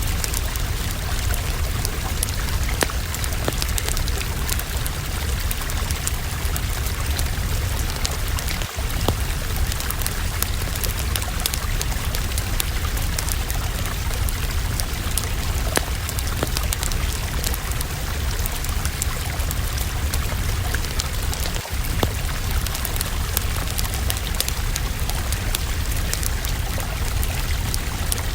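Wood fire burning in a fireplace, crackling and popping over a steady hiss and low rumble, with two very brief dips in the sound.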